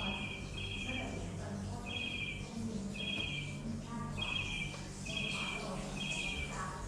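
A bird calling a short, high, trilled note over and over, about once a second, over a steady low hum.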